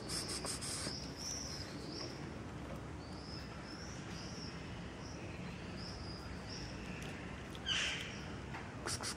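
Small birds chirping in short, high, repeated calls about once a second, with a brief louder sound about eight seconds in.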